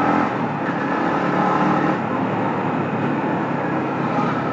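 Yamaha MT-15's single-cylinder engine running at a steady cruise while riding at about 40 km/h, with road and wind noise.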